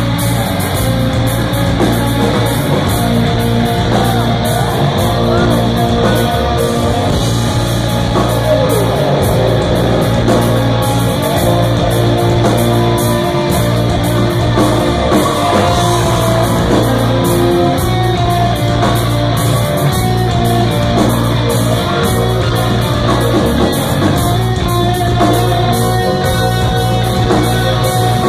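Rock band playing live at full volume: electric guitars, bass and drums, with a singer's voice at times, heard from within the audience.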